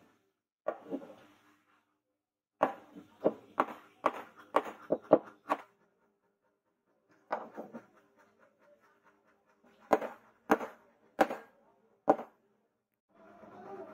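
Hammer blows driving a wooden knife handle with a metal ferrule down onto the blade's tang. There is a single knock, then a quick run of about eight strikes, a patter of light taps, and four more spaced blows near the end.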